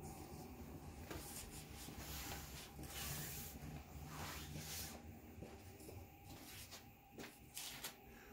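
Faint rubbing and rustling of a phone being handled while someone walks down into a basement, with a few soft knocks near the end.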